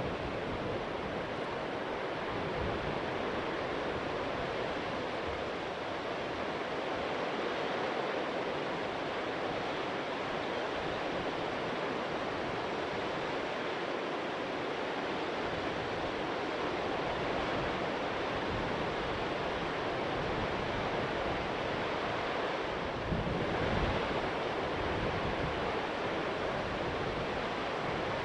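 Steady rush of floodwater pouring through the open gates of the Big Bend Dam spillway on the Missouri River, with wind buffeting the microphone and a stronger gust about 23 seconds in.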